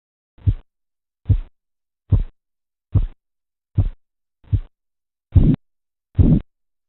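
Korotkoff sounds through a stethoscope over an artery under a deflating blood pressure cuff: pulse beats about one every 0.8 seconds, starting out of silence about half a second in. The first six are short taps; the last two are longer and louder.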